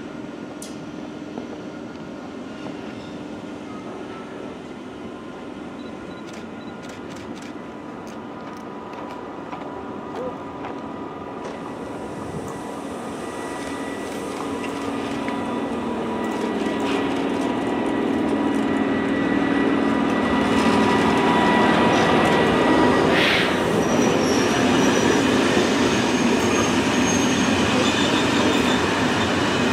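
SNCF CC 6500 electric locomotive CC 6558 hauling Corail coaches, growing louder as it approaches and passes with a steady electric whine. The rumble of the coaches' wheels on the rails follows, with a brief squeal about two-thirds of the way through.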